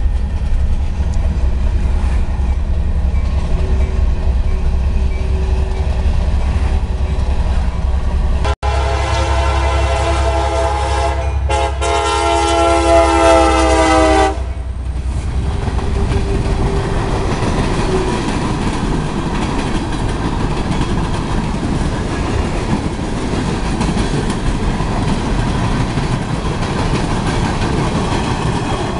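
CSX diesel freight train rumbling past, heard from inside a truck. About nine seconds in, the locomotive's air horn sounds one long blast of several seconds, a chord of several tones. After it the freight cars roll by with a steady clatter.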